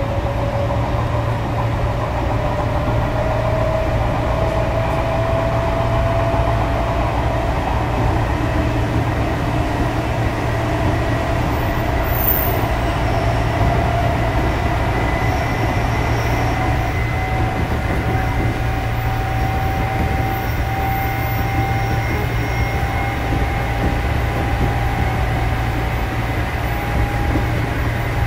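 Chopper-controlled Odakyu 8000 series electric train running, heard from inside the car: a steady low rumble of the wheels on the rails, with a motor whine that rises slowly in pitch as the train gathers speed.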